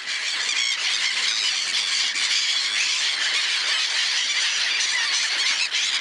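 A large flock of gulls calling all at once: a dense, unbroken, high-pitched din of many overlapping cries.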